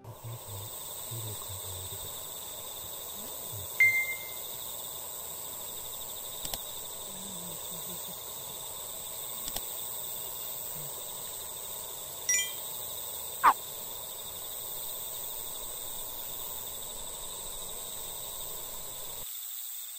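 Quiet outdoor evening ambience: a steady hiss with a few short tonal calls, one a quick downward whistle about two-thirds of the way through. It cuts off suddenly just before the end.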